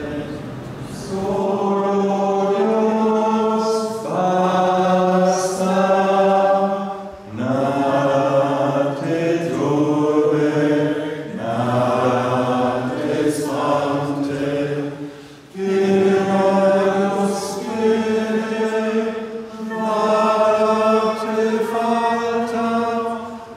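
A group of people singing a slow chant together in long held notes, with short pauses between phrases.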